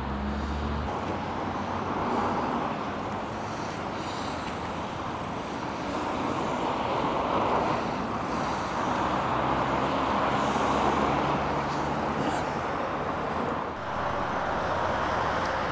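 Steady road-traffic noise of cars and trucks driving past, swelling and easing gently without a break.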